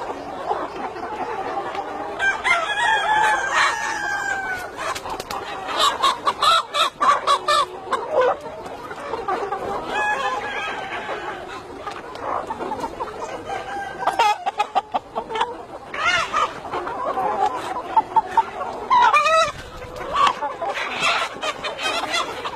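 A flock of chickens clucking and calling, many short calls overlapping.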